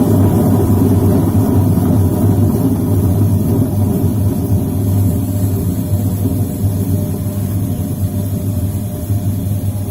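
Whirlpool White Magic F65 washing machine running a spin cycle, its motor giving a steady low hum that eases off a little in the second half. The spin fault is traced to a leaking gearbox that jams once water gets into it.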